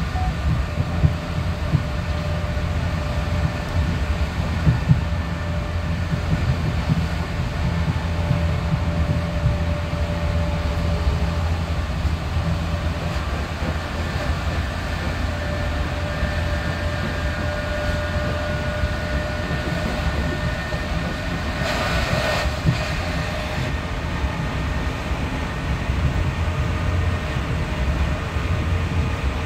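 Inside a Class 465/1 Networker electric train cruising at about 66 mph: a steady low rumble of wheels on track with the Brush/Hitachi traction motors' faint steady whine above it. About three-quarters of the way through, a brief rush of louder hissing noise lasts about two seconds.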